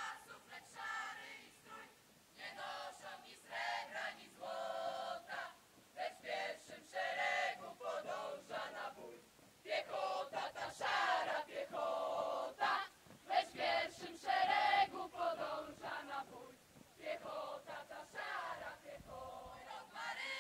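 A marching column of young men and women singing a military marching song together, with some long held notes.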